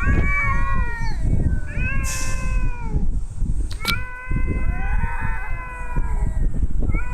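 Black cat giving long, drawn-out yowling meows, three in a row, each sliding slightly down in pitch, an odd cry for a cat. A low rumble runs underneath, and a single sharp click sounds about four seconds in.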